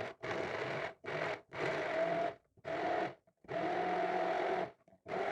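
Electric blender running in short bursts, about six in all, with sudden silent gaps between them, grinding lemon, grated ginger, honey and sugar with a little water. The motor's hum rises slightly in pitch within some bursts as it spins up.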